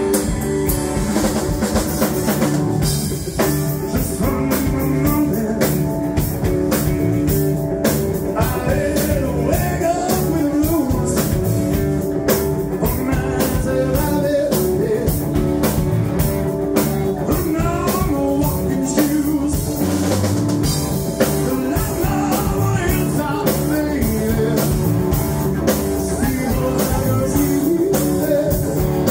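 Live rock band playing electric guitars, bass guitar and drum kit through the PA, with a man singing into a handheld microphone.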